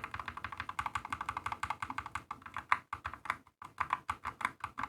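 Mechanical keyboard modifier and arrow keys fitted with lubed Boba U4T tactile switches, pressed in quick succession: a rapid run of key clacks, several a second, with a brief pause about three and a half seconds in.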